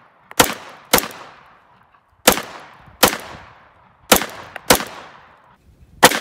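Seven shots from a .22 LR handgun firing 32-grain high-velocity rounds, in an uneven string. Each is a sharp crack followed by a short echo.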